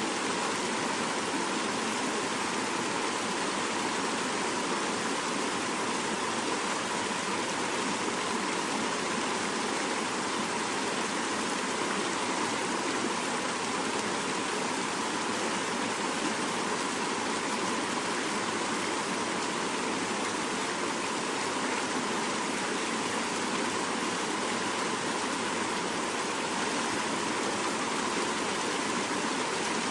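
Fast-flowing mountain river rushing, a steady even noise of water that does not change.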